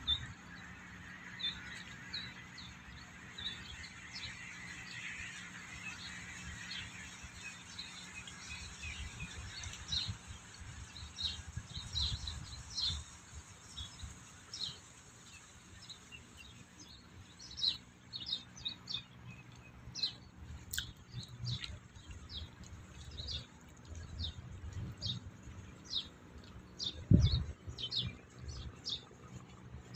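Small birds chirping: many short, high chirps, busier in the second half, over low rumbling thumps, with one louder low thump near the end.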